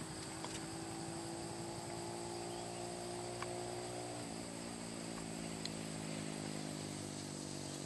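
A motor vehicle's engine runs steadily, its pitch dropping suddenly about four seconds in. Under it runs a steady high buzz of insects.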